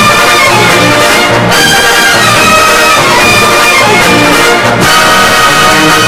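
Light orchestral recording of Viennese music, with brass instruments leading over a steady beat. It is played from a late-1960s stereo LP.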